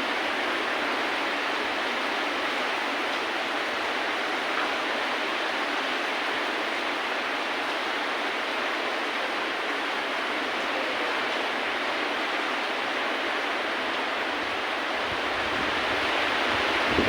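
Steady rain, an even hiss with no music over it. A low rumble comes in near the end.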